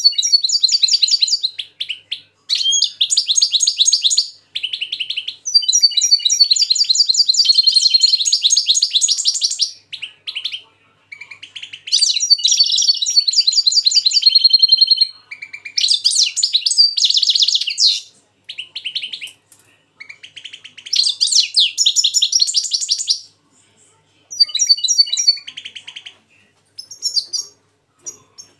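Caged European goldfinch and goldfinch–canary hybrid (mixto) singing against each other: bursts of fast, high twittering song a few seconds long, broken by short pauses.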